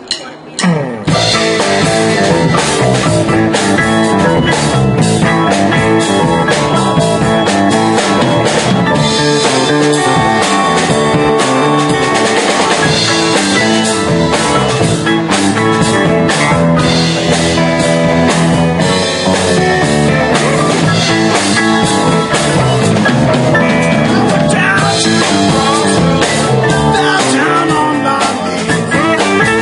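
Live rock band playing, with a drum kit, electric guitars and keyboard, kicking in about a second in.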